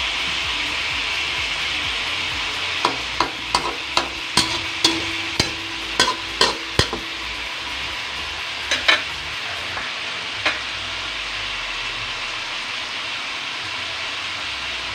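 Pork chops sizzling in a metal wok, with a steady frying hiss. A fork clinks and scrapes against the pan as the chops are turned: about ten sharp clicks between about three and seven seconds in, then two more.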